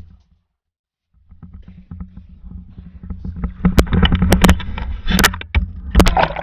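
Water sloshing and splashing with a low rumble, with sharp knocks and clicks growing louder about halfway through. The sound cuts out completely for under a second near the start.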